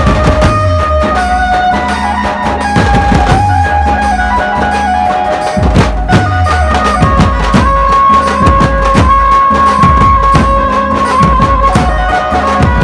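Chhattisgarhi dhumal band playing live: large drums beat a steady rhythm under long held melody notes.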